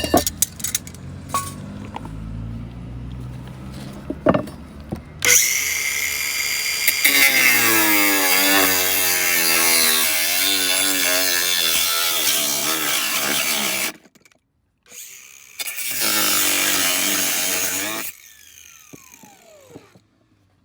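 A power tool cutting through copper pipe in two runs, the first about nine seconds long and the second about three, its pitch shifting as the blade loads up. The motor winds down with a falling whine near the end.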